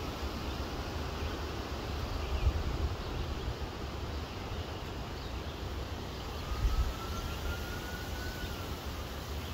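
Outdoor ambience with a steady low rumble and hiss, like wind on the microphone, with two brief gusts. About six seconds in, a faint drawn-out tone rises slightly and holds for about two seconds before fading.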